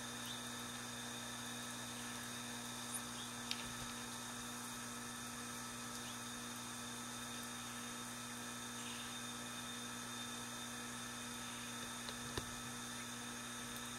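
Steady electrical hum over a faint hiss, with a few short faint ticks, two about three seconds in and one near the end.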